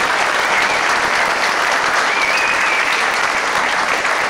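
Theatre audience applauding steadily: a dense, even sound of many hands clapping.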